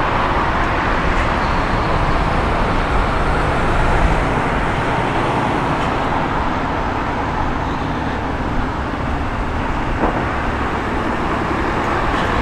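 Steady city street traffic noise, a continuous rumble of passing road vehicles.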